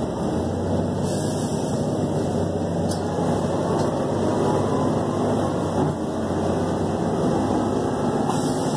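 Steady engine and road noise inside the cabin of a moving city transit bus, with a low hum underneath.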